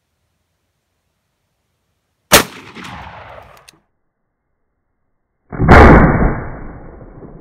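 Two shotgun shots about three seconds apart, each a sharp blast that rings out. The second has a long, echoing tail, and its shot kicks up dust in the field.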